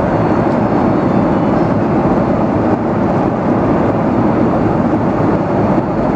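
Steady in-flight cabin noise of a Boeing 737 airliner heard from a passenger seat, an even rush that is heaviest in the low range.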